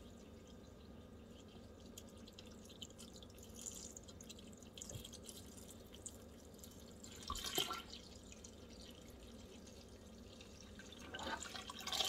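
Water poured from a plastic gallon jug into a stainless steel stockpot of soap paste, splashing steadily, briefly louder about seven seconds in and again near the end.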